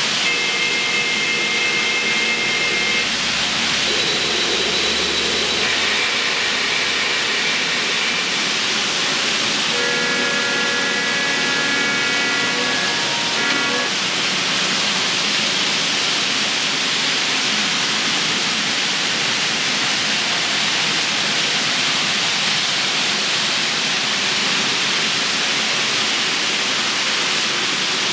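Model train sound effects over a steady hiss. In the first half come a few held chords of pitched tones, like a train horn or whistle; the longest starts about ten seconds in and steps down in pitch as it ends. After that only the hiss remains.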